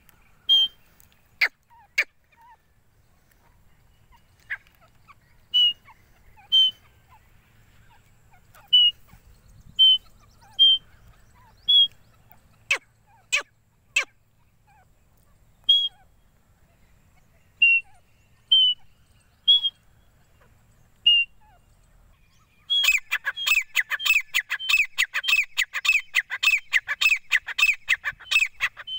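Grey francolin calling: single short, high call notes every second or two, then, about three-quarters of the way through, a loud, fast run of repeated rhythmic calls.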